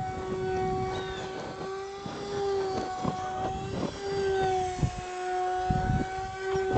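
Small RC foam plank plane's motor and propeller flying overhead: a steady hum that drifts slightly up and down in pitch, with several short thumps along the way.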